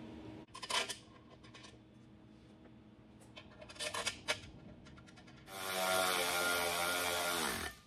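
A few light metal clicks and knocks as the wheel's assembly bolts are handled. Then a cordless power ratchet runs steadily for about two seconds, tightening the bolts of a three-piece billet wheel, and winds down as it stops near the end.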